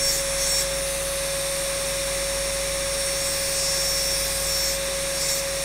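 Rotary engraving handpiece spinning a diamond burr against crystal glass, wet-grinding under a water drip: a steady motor whine with a hiss of grinding over it.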